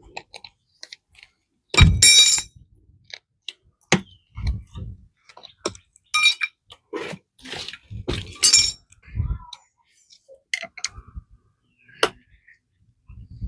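Irregular metallic clinks and knocks, a few ringing briefly, from metal tools and wheel parts being handled while a softened solid rubber tire is worked onto a scooter wheel rim.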